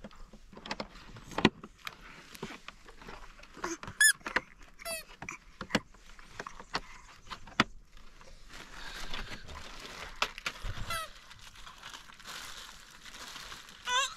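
Hard plastic parts of a baby walker clicking and knocking together as they are fitted, with a few short high-pitched squeaks; from about halfway through, plastic wrapping crinkles as parts are unpacked.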